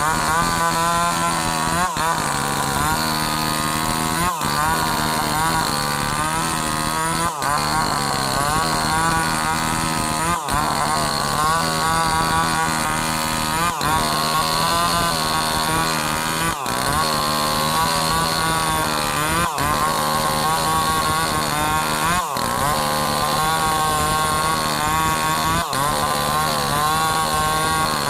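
Chainsaw running at high speed while cutting sengon wood, its pitch wavering under load. Brief breaks come every few seconds.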